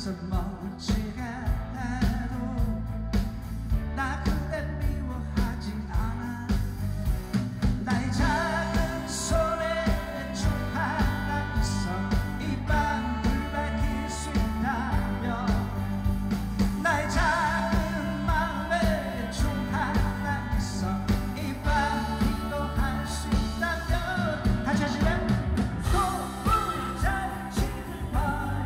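A singer performing a Korean pop-rock song live with a band, over a steady drum beat and bass.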